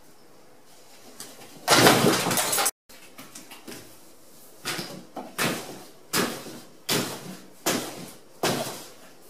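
A loud, noisy burst about a second long that cuts off abruptly, then a run of sharp thumps in a small room, about one every three quarters of a second, made by a person acting out an animal eating.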